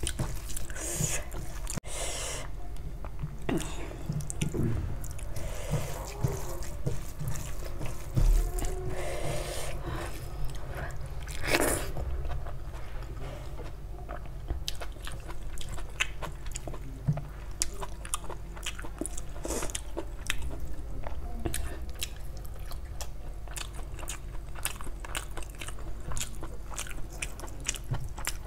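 Close-miked chewing of rice and egg curry eaten by hand, with many short wet smacks and clicks of the mouth, along with fingers mixing wet rice on a steel plate.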